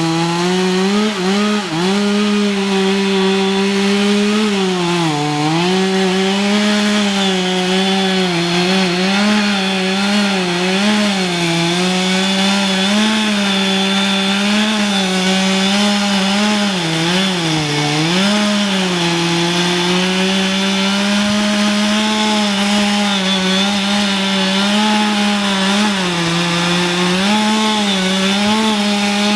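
Chainsaw with a 20-inch bar cutting into a tree trunk wider than the bar. The engine runs at high speed without a break, its pitch dipping and recovering again and again as the chain loads and frees in the wood.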